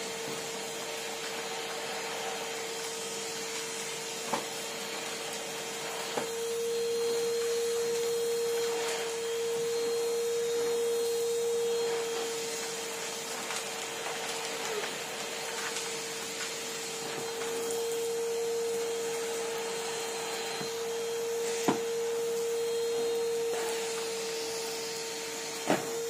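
Numatic Henry cylinder vacuum cleaner running steadily, its motor a constant hum over the rush of suction as the floor tool is pushed over carpet. The suction grows a little louder and eases a couple of times, with a few light knocks from the tool.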